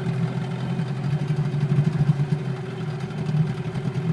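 Brand-new engine idling with its choke flap part-way open, running a little unevenly; its owner complains that it sputters, cause unknown.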